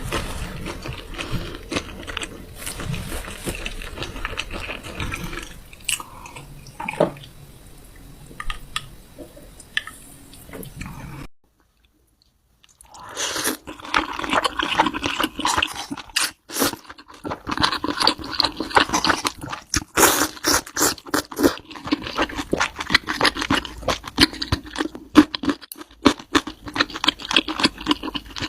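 ASMR mukbang eating sounds: crunchy food being bitten and chewed, with many sharp crackles. The sound drops out completely for about a second and a half near the middle, then comes back with louder, denser crunching.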